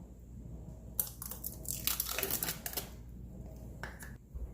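Plastic food packaging crinkling and rustling as it is handled, with a sharp click about a second in and another near the end.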